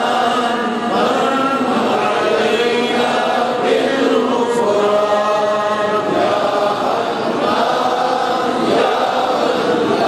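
Men's voices chanting zikr, the Islamic devotional repetition of God's name, in a continuous, drawn-out melodic chant.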